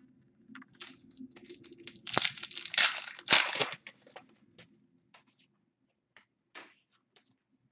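Foil trading-card pack being torn open and its wrapper crinkled, loudest about two to four seconds in, then a few light clicks and rustles of cards being handled.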